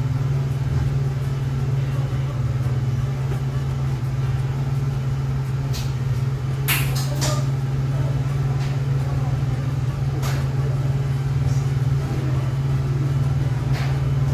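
An engine running steadily at idle, a low even drone, with a few sharp clicks or knocks about six, seven, ten and fourteen seconds in.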